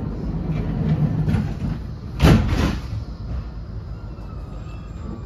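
Blackpool tram running with a steady low rumble. A loud, brief burst of noise, a clunk or rush across all pitches, comes about two seconds in.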